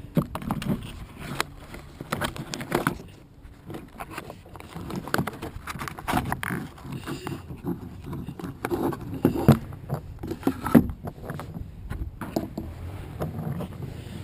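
Irregular clicks, taps and scrapes of hand handling, as the wooden toy engine and its packaging are worked at, with a few sharper knocks.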